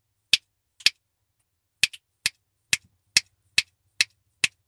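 A series of sharp, short clicks made by hand, about two a second with a brief pause about a second in. They are made to set off the sound-reactive ambient LED lights.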